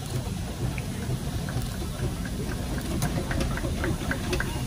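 Steam traction engine moving slowly at walking pace: a steady low mechanical rumble, with light ticking and clanking setting in from about a second and a half in.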